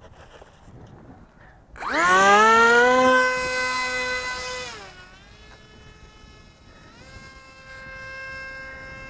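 Brushless outrunner electric motor and propeller of an RC parkjet whining. It spools up sharply about two seconds in and holds loud at high throttle, is throttled back around five seconds, and is throttled up again to a steady, higher whine near seven seconds.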